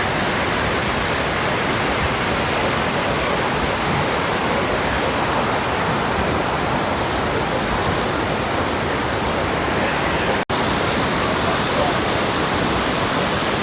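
Waterfall crashing with a loud, steady rush of water. The sound drops out for an instant about ten seconds in.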